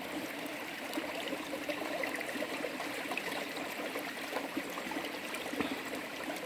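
Shallow river water running and splashing around a wooden gold pan as gravel and pebbles are swirled in it underwater by hand, with many small ticks over a steady rush of water.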